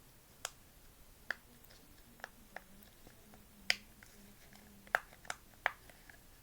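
Silicone pop it fidget toy being pressed, its bubbles popping with sharp clicks, about eight at uneven intervals.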